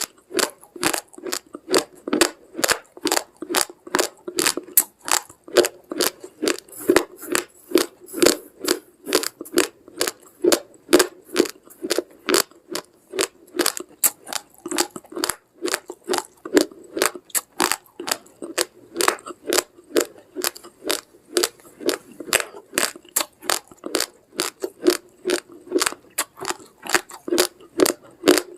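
A person chewing raw, uncooked rice grains: a steady rhythm of hard, sharp crunches, about two or three a second.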